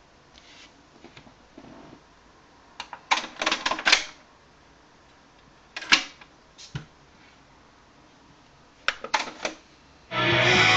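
Plastic clicks and clatters of a Panasonic SA-PM21 micro stereo's top-loading cassette deck being handled, its door opened, a cassette fitted and the door shut, in several short bursts. Near the end the tape starts playing and guitar music comes in loudly from the speakers.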